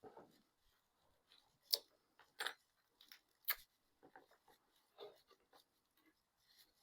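Faint, scattered clicks and rustles of hands cutting off a piece of two-part epoxy putty and handling it, with a few sharper clicks about two to three and a half seconds in.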